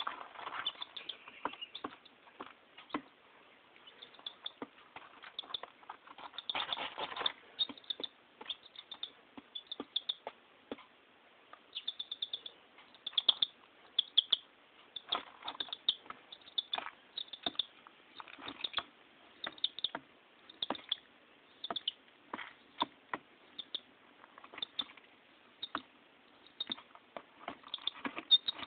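Chick pecking at feed: quick, irregular beak taps in clusters, with a louder rustle about seven seconds in.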